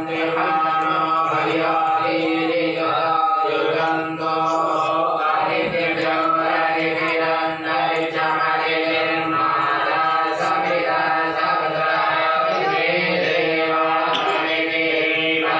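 Hindu devotional mantra chanting over a steady held drone, going on without a break.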